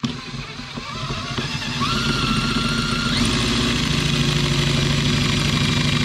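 Power drill boring into the steel mounting plate of a microwave oven transformer with a 12 mm bit, drilling away a fixing that holds the plate on. The motor starts at once and runs steadily under load, its whine stepping up in pitch over the first three seconds and then holding.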